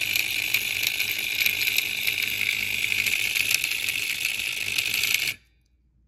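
Simplex vibrating fire alarm bell mechanism running on power: the coil pulls the hammer down, opening and closing the contact points many times a second, which gives a loud, steady, harsh buzzing rattle. It cuts off suddenly a little after five seconds in.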